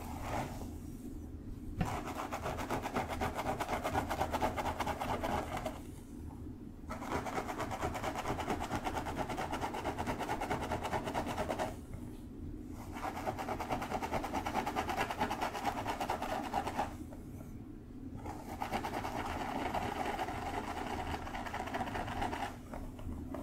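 Fingertips and nails scratching rapidly through long hair on a scalp, close-miked for ASMR. The scratching comes in four spells of several seconds each, with brief pauses between them.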